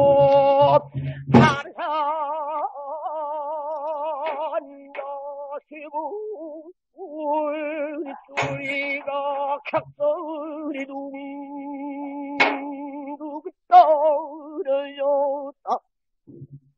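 Pansori singing: one voice holding long notes with wide, wavering vibrato, marked by a few sharp strokes of the buk barrel drum. The song ends shortly before the close.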